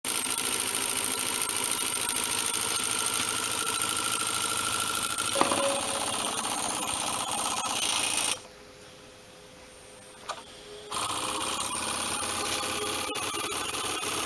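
Small double-acting model steam engine running fast on compressed air: a rapid, even hissing beat of exhaust. About eight seconds in it stops, with a single click near ten seconds. It starts running again about eleven seconds in.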